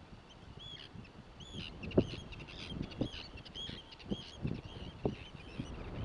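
A flock of birds calling, many short high calls overlapping one after another, with several low thumps, the loudest about two seconds in.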